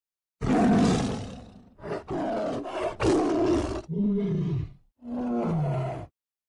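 A tiger roaring in a string of about five calls. The first, longest and loudest roar starts about half a second in; shorter roars follow, then two lower growling calls that fall in pitch near the end.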